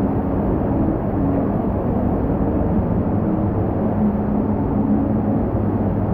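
Formula 1 race car engine sound effect played through the water slide's speakers, mixed with water rushing through the enclosed tube; a steady, muffled din with a low engine drone that shifts slightly in pitch.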